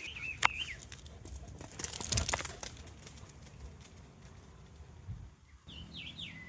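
Rustling and crackling noise, loudest about two seconds in, with birds chirping at the start and again near the end.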